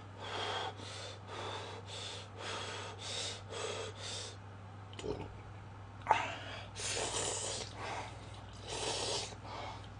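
A person slurping cup ramen noodles: a quick run of short slurps, about two a second, for the first four seconds, then after a short pause a few longer, louder slurps.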